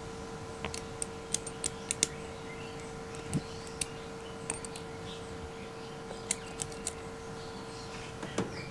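Small sharp metal clicks and ticks as the spring-loaded bolt assembly of a Union cylinder night latch is handled and fitted together, coming in irregular clusters, with a steady hum underneath.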